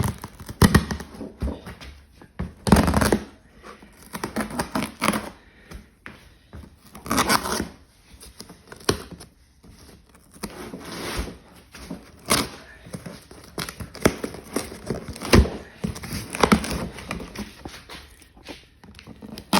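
Strong packing tape on a cardboard parcel being picked at and torn, with crinkling and knocks from handling the box, in irregular bursts.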